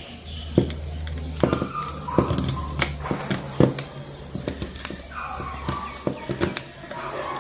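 Irregular sharp clicks and taps of small tools and plastic and metal parts being handled while taking a smartphone apart, over a low steady hum.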